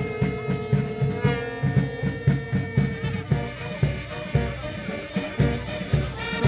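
Music: brass instruments holding long notes over a steady drum beat.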